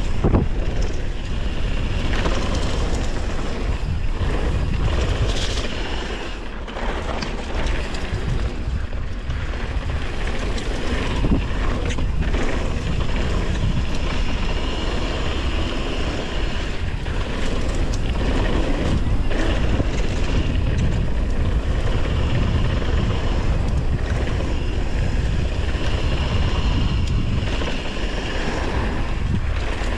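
Mountain bike riding fast down a dirt downhill trail: wind buffeting the microphone, tyres rolling over dirt, and the bike rattling and knocking over bumps.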